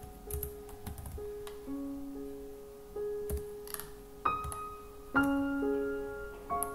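Background piano music: slow, held notes changing about once a second, the strongest notes striking near four and five seconds in. A few faint clicks of a computer keyboard and mouse sound under it.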